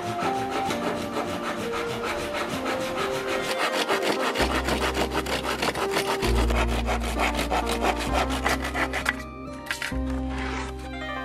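Hand saw cutting through wood in rapid, even back-and-forth strokes, which stop about nine seconds in. Background music plays throughout.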